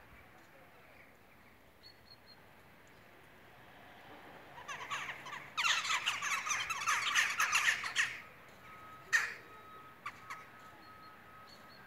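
Crows calling harshly. A loud clamour of rapid caws about four to eight seconds in, then one sharp call a second later and a few fainter ones.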